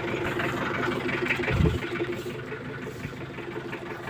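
Steady hum of an idling engine, with light rustling and a dull low bump about a second and a half in.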